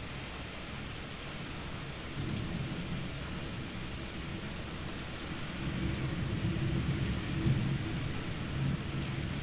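Thunderstorm: steady rain with low rolling thunder that builds from about two seconds in and is loudest toward the end.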